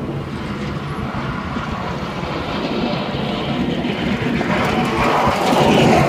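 Steady vehicle engine and road noise, growing louder over the last couple of seconds as a large truck comes close alongside.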